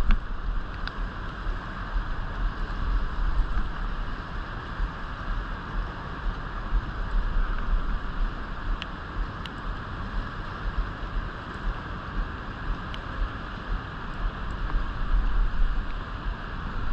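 Steady rush of river water, with wind buffeting the microphone in uneven low gusts.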